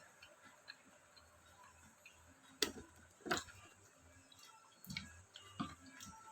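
Crisp bites and crunches of unripe mango eaten with sweet fish sauce: a few sharp, separate cracks, the two loudest about two and a half and three seconds in, with softer ones near the end.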